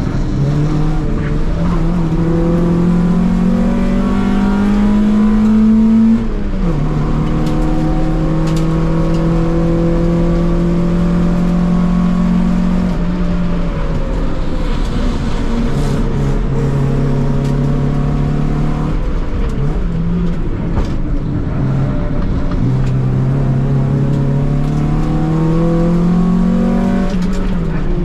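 Honda D-series four-cylinder engine heard from inside the Civic's cabin, pulling hard under acceleration with rising revs. The revs drop sharply at an upshift about six seconds in, fall away midway as the car slows for a corner, and climb again near the end.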